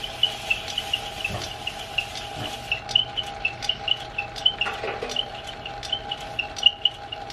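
Metal lathe spinning the armature of a 1930s–40s Frigidaire repulsion-induction motor while abrasive paper is pressed against its blackened commutator to clean it. A steady hum runs under the rubbing, with short high squeaks repeating about three times a second.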